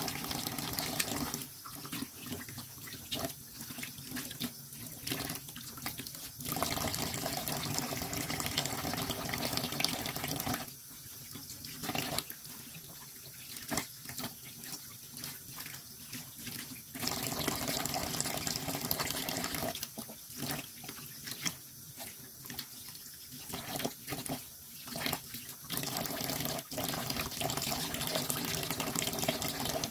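Tap water running into a sink in stretches of a few seconds, stopping and starting several times, with small clicks and knocks in the quieter gaps, as fish and shrimp are rinsed during cleaning.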